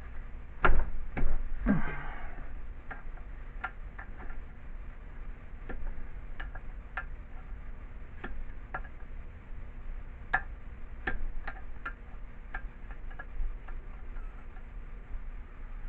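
A wrench clicking and clinking on metal as bolts are taken out of an old air compressor. A few louder knocks come in the first two seconds, then scattered light clicks.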